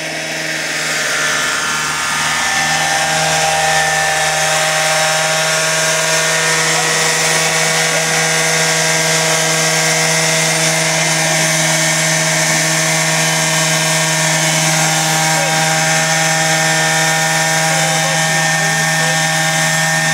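Petrol engine, four-blade main rotor and Fenestron tail fan of a large radio-controlled scale Dauphin model helicopter in flight: a steady high mechanical whine over a low rotor drone. It grows louder over the first few seconds as the model closes in, then holds steady while it hovers nearby.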